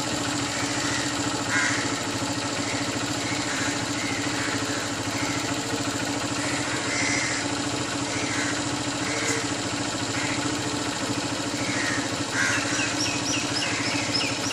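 A steady mechanical hum like an engine running, with birds calling now and then, crows among them. A quick run of high chirps comes near the end.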